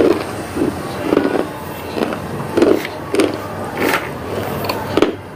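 A person chewing hard, crunchy pink-and-white pieces with the mouth closed, a crunch about every half second.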